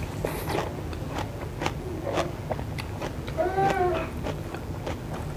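A person chewing a mouthful of tahu isi (fried stuffed tofu) close to the microphone, with frequent soft wet mouth clicks and smacks. A short hum from the voice comes about three and a half seconds in.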